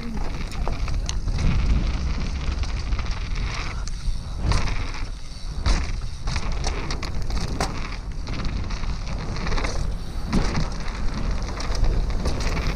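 Downhill mountain bike riding fast down a dirt forest trail: wind rushing over the camera microphone, tyres rumbling on dirt and loose stones, and the bike rattling and knocking over bumps many times.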